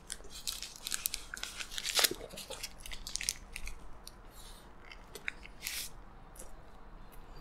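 A double cheeseburger being bitten into and chewed close to the microphone: sharp crackles and crunches, loudest about two seconds in, with the paper wrapper crinkling in the hands.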